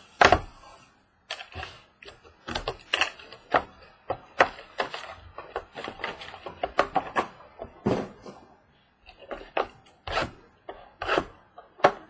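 Cardboard boxes of Topps Museum Collection baseball cards being handled and set down on a wooden tabletop: a rapid, irregular run of knocks and taps.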